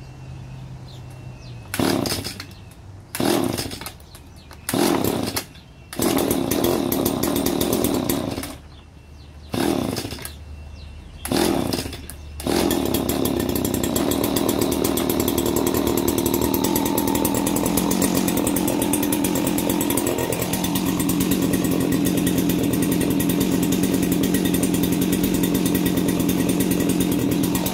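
Stihl FS80 line trimmer's two-stroke engine being pull-started on choke after priming. Six short bursts come in the first twelve seconds, one of them running for about two seconds. Then it catches and keeps running steadily.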